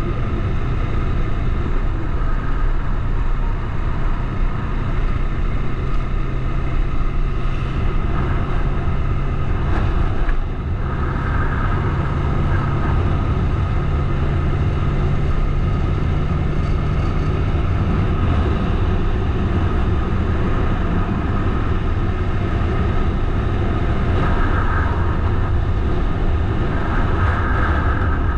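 Bajaj Dominar 400's single-cylinder engine running steadily under way. The sound dips briefly about ten seconds in, and the engine note sits a little higher for several seconds after.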